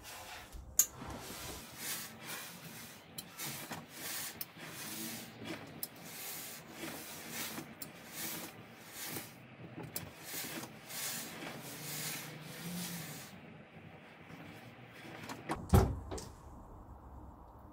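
Steam iron hissing in repeated short bursts of steam, about one or two a second, as it presses a hank of cotton basting thread. The bursts die away, and a single loud thump comes near the end.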